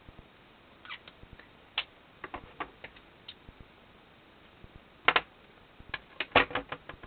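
Small clicks and taps of tiny plastic drone parts and a battery being handled on a wooden tabletop: scattered at first, then a quick pair of louder clicks about five seconds in and a run of clicks near the end.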